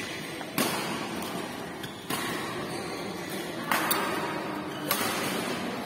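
Badminton rackets striking a shuttlecock in a doubles rally: about five sharp hits, roughly one every second or so, two of them in quick succession past the middle, over a low murmur of hall noise.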